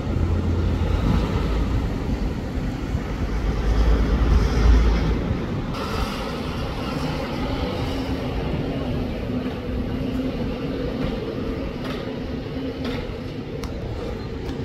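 Road traffic, with motorcycles and cars passing. A low rumble swells over the first few seconds and dies away about five seconds in.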